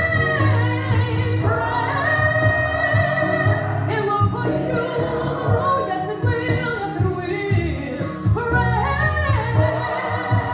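A woman singing a gospel song solo into a microphone, with long held notes that slide between pitches, over musical accompaniment with a steady bass.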